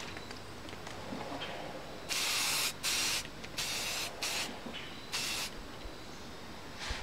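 Aerosol spray-paint can spraying in five short bursts, starting about two seconds in, each about half a second or less.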